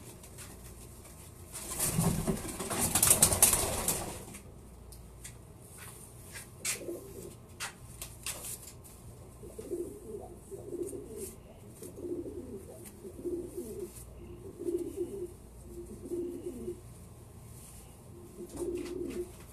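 Racing pigeons in a loft: a loud burst of wing flapping for about two seconds, starting about two seconds in, as a pigeon is caught by hand. It is followed by low pigeon coos repeating about once a second, with a few light clicks.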